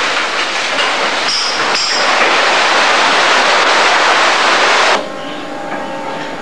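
Seawater sloshing and rushing across a flooded corridor floor as the ship rolls heavily in a storm: a loud, steady wash. About five seconds in it drops abruptly to a quieter, steady hum.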